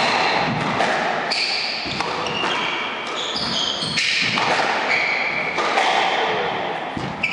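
Squash rally: the ball knocking sharply off rackets and walls, with sneakers squeaking in short high chirps on the wooden floor as the players move.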